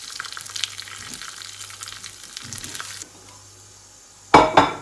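Tempering of mustard seeds, cumin, cashews and curry leaves sizzling and crackling in hot ghee in a small pan, with scattered pops. About three seconds in the sizzle drops away as the pan comes off the heat, and near the end there is a short, loud double burst as the hot tempering is tipped over the rava idli batter.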